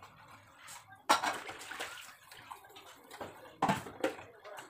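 Dishes being washed by hand in a stainless-steel sink: water and scrubbing, with a sharp clatter of utensils about a second in and another clatter near the end, followed by a smaller knock.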